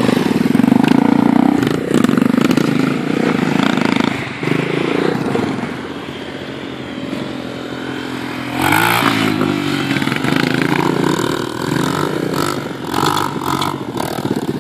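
Off-road vehicle engine under load, revving up and down: loud at first, easing off for a couple of seconds, then rising sharply again about nine seconds in. Occasional clatters and knocks are heard over the engine.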